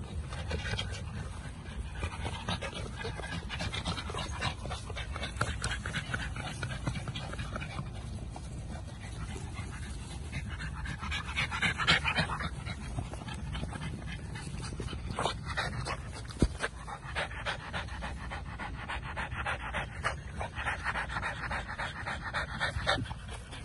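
American Bully puppy panting, its quick short breaths coming in runs with brief pauses between them, over a low steady rumble.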